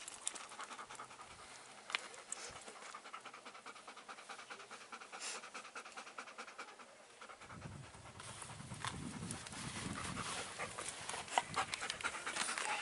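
Dog panting in a fast, steady rhythm. From about halfway through, a low rustling noise joins in and grows louder.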